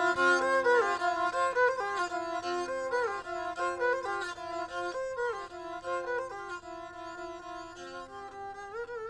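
Background music: a bowed string instrument plays a slow melody of held notes, sliding between pitches, growing softer near the end.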